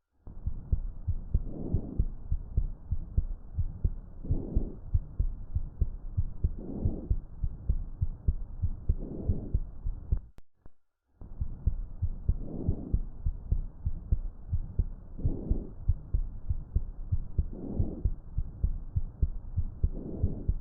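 Chest sounds heard through a stethoscope: soft, constant murmur-like breath sounds swelling with each breath about every two and a half seconds, over regular low heartbeat thuds. The sound breaks off for a moment about halfway, then resumes. These are the vesicular breath sounds presented as the example from the auscultation.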